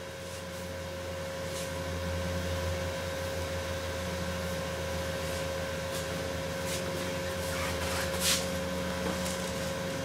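Ford 4.0-litre V6 idling steadily under the open hood, with a low, rapidly pulsing hum. There are a few light clicks, the clearest about eight seconds in.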